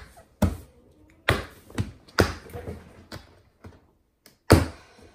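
Small hard plastic carry case handled on a desk and its latches snapped open: a string of sharp clicks and knocks, the loudest near the end.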